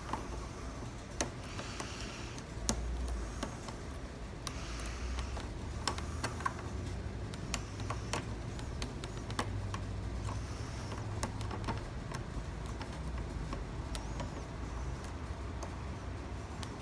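Small irregular metal clicks and scrapes of tools working in a gumball machine's lock cylinder, which is jammed by loose pins and springs, over a steady low hum.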